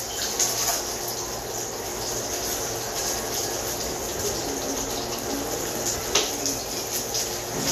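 Breaded tilapia frying in hot oil in a pan: a steady sizzle with a few sharp pops of spitting oil.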